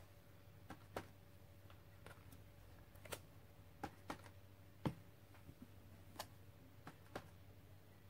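Light, irregular taps and clicks of a clear stamp being dabbed on a black ink pad and pressed onto the paper page, about a dozen soft knocks over a faint low hum.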